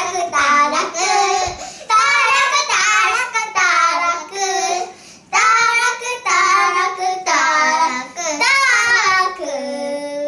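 Young children singing a song together in a run of short sung phrases, stopping at the very end.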